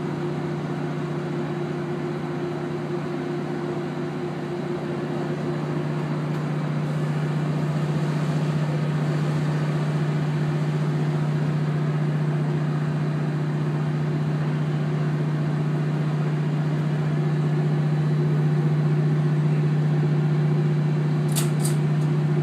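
Steady low hum of a boat's engines running while the boat sits in a lock chamber, over an even rushing background that grows slightly louder from about four seconds in.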